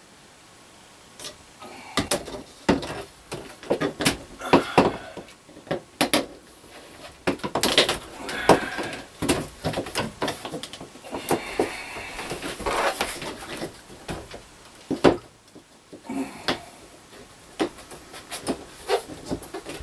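Thin, flimsy shower stall wall panels being handled and fitted together: irregular knocks, clicks and flexing rattles as the panels bump each other and the frame, with longer rubbing sounds around the middle.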